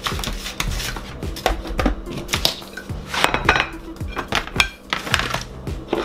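Clatter of plates and kitchen utensils being handled and set down on a counter, many short knocks and clinks, over background music.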